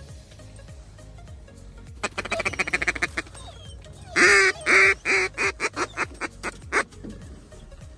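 Mallard duck call blown by a hunter: a fast chattering feeding chuckle, then two long loud quacks followed by a quickening string of shorter quacks that trail off.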